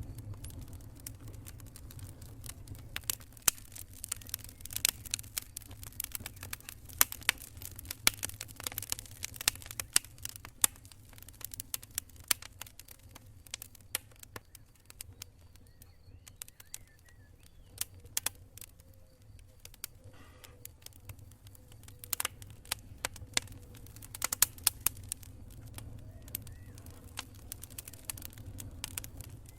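Wood campfire crackling: irregular sharp pops and snaps over a steady low rumble, thinning out to a few scattered pops for several seconds mid-way before picking up again.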